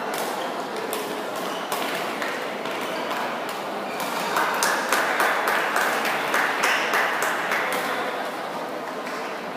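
Badminton rackets striking a shuttlecock during a rally, sharp hits ringing in a large hall, with a run of quick hits about halfway through. A murmur of crowd voices runs underneath.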